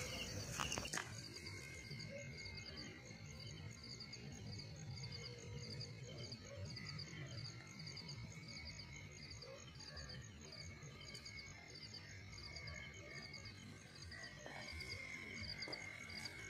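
Night chorus of frogs and insects: a high chirp repeating about twice a second over a steady, lower trill.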